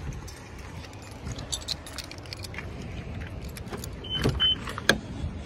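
Keys jangling with scattered light clicks and knocks, and two short high beeps about four seconds in.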